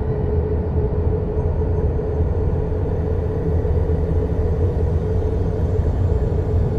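Space-themed ambient drone: a steady dense low rumble with one held mid-pitched tone above it and a faint hiss, unchanging throughout.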